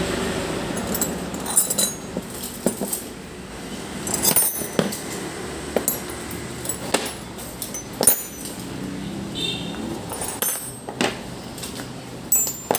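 Steel combination and open-end wrenches clinking against each other and tapping on a wooden tabletop as they are picked up and laid out in a row: scattered metallic clinks, a few of them ringing briefly.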